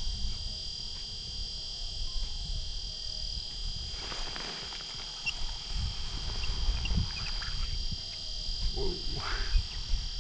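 Wind rumbling on the microphone, with faint rustles and light clicks of handling and reeling as a short ice-fishing rod is lifted and reeled in. A steady high whine runs underneath.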